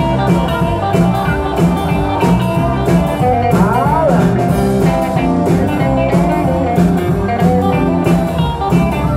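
Rockabilly band playing live: an instrumental break led by electric guitar over a steady bass and drum beat, with bent guitar notes about halfway through.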